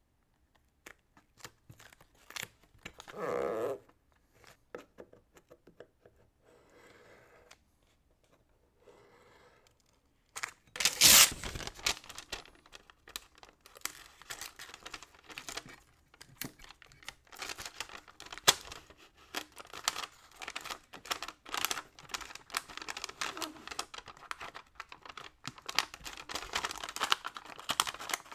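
Blue masking tape being handled and pressed down, with a short rip about three seconds in, then from about ten seconds on brown kraft paper crinkling and rustling as it is folded and pressed over the taped model body, beginning with a loud crumple.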